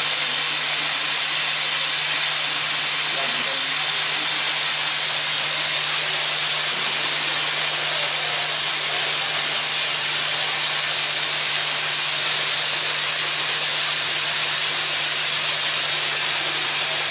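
Security fog generator discharging, a loud steady hiss of fog jetting out, with a steady low hum underneath.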